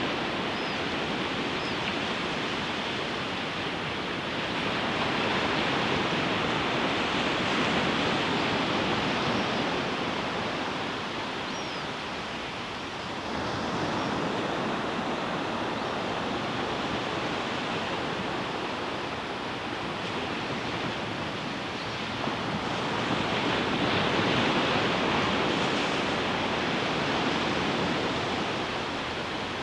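Ocean surf breaking on a beach: a continuous wash of waves that swells louder about every ten seconds as each wave breaks and runs up the shore.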